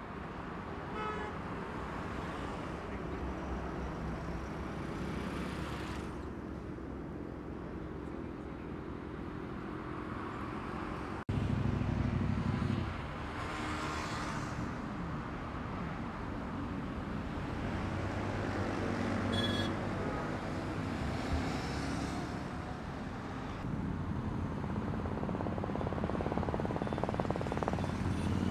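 Motorcycle engines of a group of sport bikes running and revving on an open road, over general traffic noise, with a couple of short horn toots. The sound jumps louder about a third of the way in.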